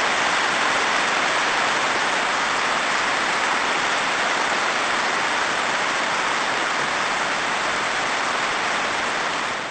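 A large audience applauding steadily, fading out at the end.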